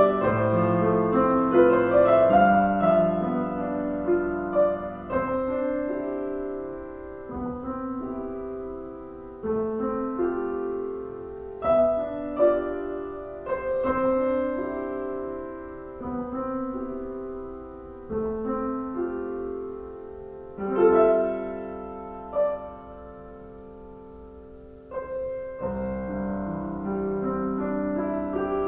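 Solo piano playing slow chords, the notes struck and left to ring as each chord changes every second or two.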